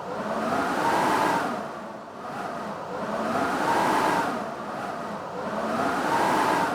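Blizzard wind howling in gusts: three swells, each carrying a whistling tone that rises and falls.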